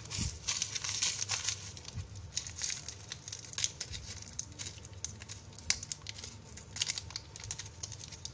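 Plastic snack packet crinkling as it is squeezed and shaken to empty crushed cheese-flavoured snack crumbs into a plastic bowl, with irregular crackles throughout.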